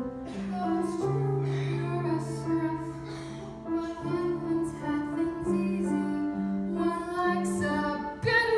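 A song from a stage musical: an accompaniment of held chords over a stepping bass line, with a sung vocal line.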